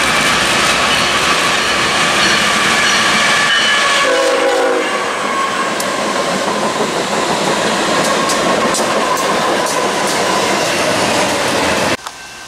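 A BNSF freight train's locomotive horn sounds as the train approaches at speed, several steady tones together, and its pitch drops as the lead locomotives pass about four seconds in. Then the locomotives and intermodal cars roll by with steady wheel noise and clicks from the rails, until the sound cuts off suddenly near the end.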